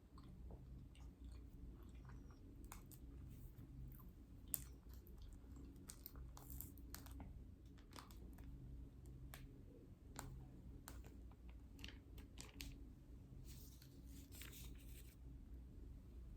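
A person chewing and biting food close to the microphone, faint wet mouth clicks and small crunches scattered through, with one sharp click about four and a half seconds in and a short denser stretch of crunching near the end. A steady low hum sits underneath.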